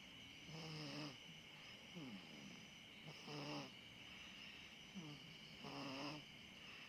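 Faint snoring in deep sleep: three pitched snores about two and a half seconds apart, with a short falling wheeze on the breath between them.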